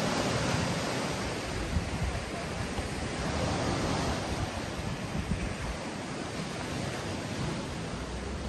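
Sea surf and wind: a steady rushing that is a little louder in the first half.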